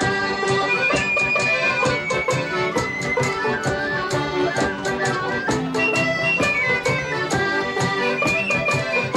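Traditional folk-style instrumental music: a lively melody over a steady beat.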